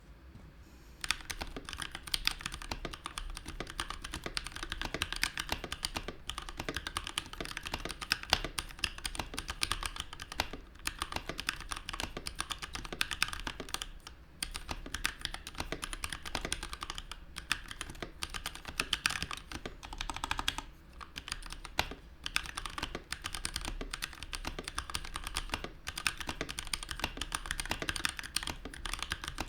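Typing on a Keychron K6 65% mechanical keyboard with aluminium case, stock Gateron Brown tactile switches and ABS keycaps: a fast, steady stream of keystroke clacks starting about a second in, with a few short pauses.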